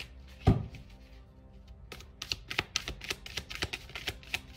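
Tarot cards being shuffled by hand: a quick run of sharp card clicks from about two seconds in, after a single low thump near the start. Soft background music plays underneath.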